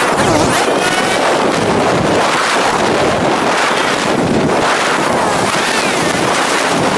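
Wind rushing over the microphone of a moving motorcycle, with the motorcycle's engine running underneath; its pitch rises a few times as it speeds up.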